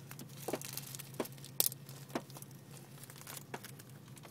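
Small clear plastic baggie crinkling and crackling in irregular bursts as fingers handle and pick at it, one sharper crackle about a second and a half in, over a steady low hum.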